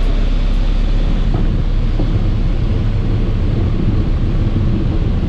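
Light single-engine propeller aircraft's engine and propeller running, heard from inside the cockpit as a steady low drone while the plane rolls along the runway.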